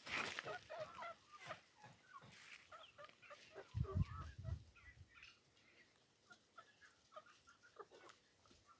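Backyard chickens clucking, short scattered calls, with a low thud about four seconds in.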